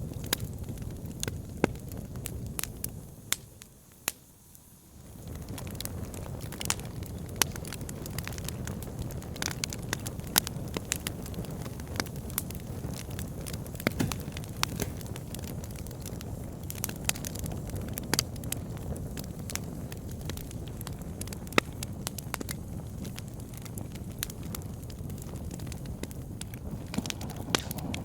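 Wood fire burning in a fireplace, crackling with frequent sharp pops over a low, steady rush of flame. The sound dips briefly to a hush about four seconds in, then returns.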